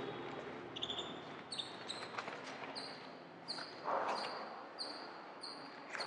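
Faint background sounds during a pause in speech: a few soft knocks and clicks, and a short high chirp that repeats about every two-thirds of a second through the second half.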